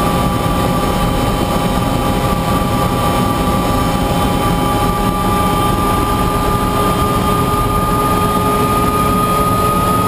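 Bell 206 JetRanger helicopter running on the ground: steady turbine whine over rotor and engine noise. The whine creeps slightly higher in pitch.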